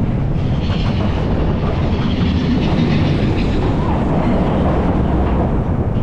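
Mine-train roller coaster cars running at speed along the track, a steady loud rumble and clatter of wheels on rails.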